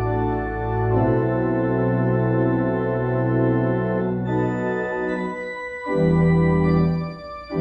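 Church organ playing slow, sustained chords over a held low bass, the chord changing every second or two, with a brief break between phrases near the end.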